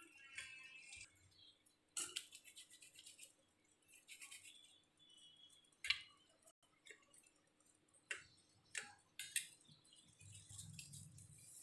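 Quiet hand work with rice-flour dough: a few faint, scattered clicks and taps as small pieces are shaped between the fingers and set down on a steel plate.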